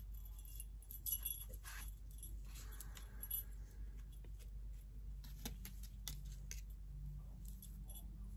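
Small bells on a dream catcher jingling lightly and irregularly as it is handled and unwrapped, with soft rustling of its wrapping now and then.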